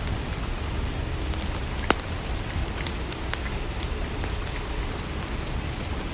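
Steady rain ambience: an even wash of rainfall with a low rumble, and scattered sharp ticks and pops throughout, one louder click about two seconds in.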